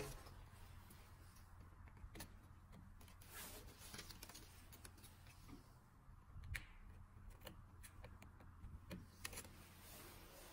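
Faint scattered clicks and rustles of flat ribbon print-head cables being handled and pushed into connectors on a printer's carriage circuit board, over a low steady hum.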